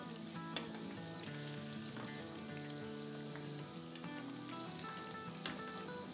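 Spice-coated salmon pieces shallow-frying in hot oil, a steady sizzle and bubble, with two sharp clicks of metal tongs against the pan as the pieces are turned. Soft background music runs underneath.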